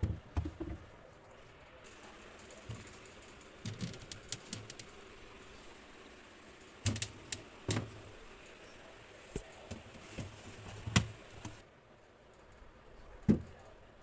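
Irregular knocks and clicks of fruit being set down on plastic fridge shelves and a plastic fridge drawer being handled. The sharpest knocks come in the second half.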